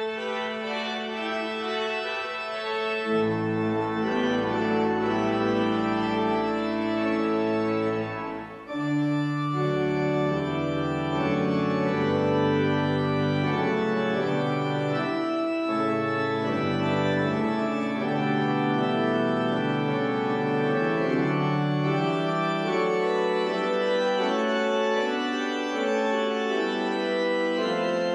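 Church organ playing the recessional voluntary at the close of the service: held chords moving from one to the next, with a brief break about eight seconds in, after which deeper bass notes join.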